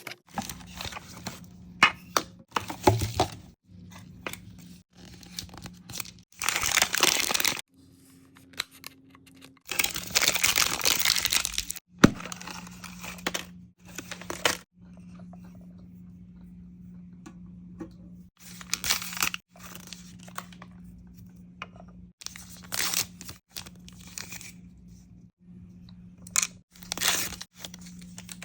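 Small plastic wrappers being torn open and crinkled, in a series of short bursts with quieter pauses between them.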